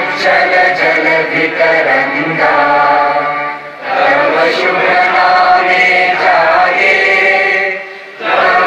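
A large crowd singing together in unison in long held phrases, with a brief pause for breath about four seconds in and another near the end.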